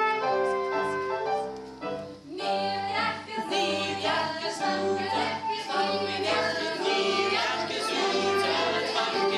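Music: a slow instrumental passage of held notes, then after about two seconds singing comes in over a steady low beat.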